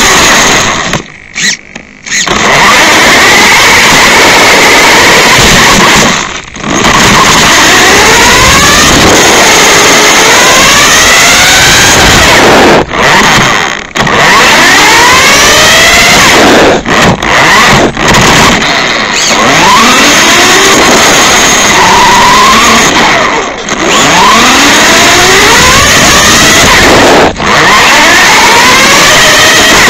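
Toy car's small electric motor and gears whining loudly, the pitch rising and falling again and again as it speeds up and slows, over a steady rushing noise. The motor cuts out briefly several times.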